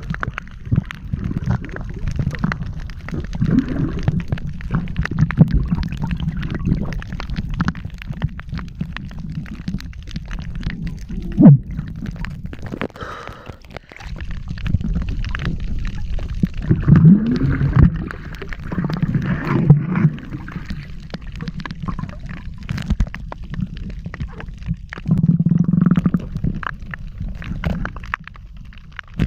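Muffled underwater water noise: low rumbling and gurgling bubbles, with many small clicks. There are a few short bubbly sweeps in pitch, one about eleven seconds in and another near seventeen seconds.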